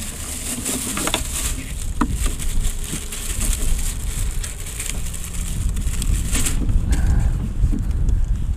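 Plastic grocery bag crinkling and rustling as it is stuffed into a motorcycle's hard saddlebag, with a few sharp knocks of handling and a steady low rumble underneath.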